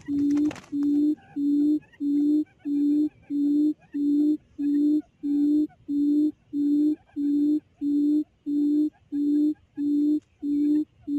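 Low hooting quail call played from a loudspeaker as a trap lure, repeating evenly about one and a half hoots a second. A quail's wings flutter briefly right at the start.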